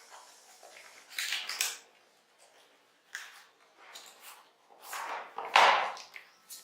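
Cardboard product box being opened and its packaging handled: several short rustling and scraping sounds, the loudest about five and a half seconds in.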